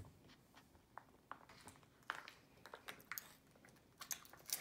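Faint, scattered crinkles and clicks of a plastic-foil MRE entrée pouch being handled, with a small cluster about two seconds in and another near the end.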